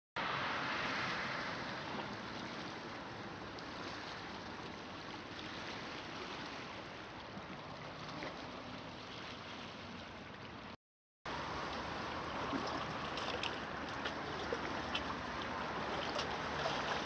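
Small lake waves lapping at the rocky shore: a steady wash of water that cuts out briefly about eleven seconds in, then returns with light splashes against the rocks.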